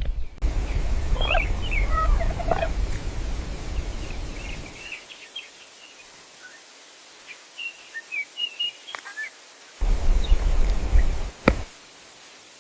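Countryside ambience: small birds chirping in short calls over a loud, even rushing noise that drops away after about five seconds and returns briefly near the end, with one sharp click near the end.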